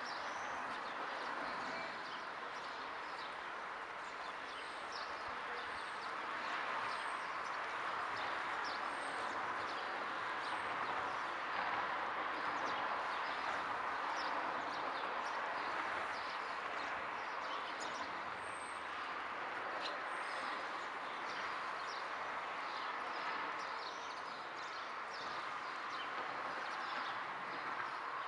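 Steady rain falling, with many scattered sharp ticks of drops hitting close by, and a few brief high bird chirps.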